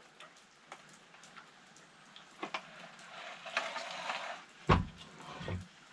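Parts of an opened vacuum cleaner being handled during a repair: scattered light clicks, a scraping rasp about three seconds in, then a couple of dull knocks near the end.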